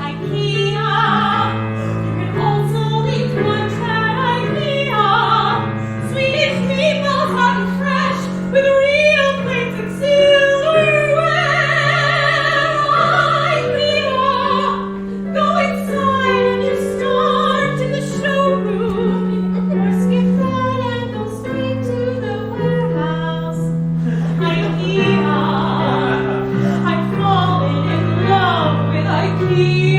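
Operatic female singing with a wide vibrato and long held notes, over sustained accompaniment chords.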